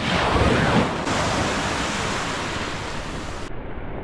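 Shallow surf washing in over the sand at the water's edge, a steady rush of water that swells louder in the first second. About three and a half seconds in the sound suddenly turns duller.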